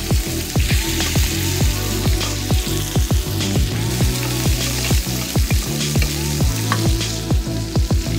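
Beef steak sizzling in hot fat in a frying pan while a spoon bastes it. Background music with a steady bass beat plays over it.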